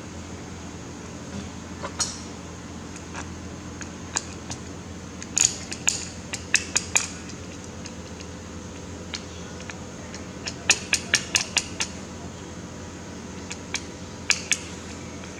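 Sharp clicks and clinks of small hard objects being handled and knocked together, in scattered clusters of quick taps, over a steady low hum.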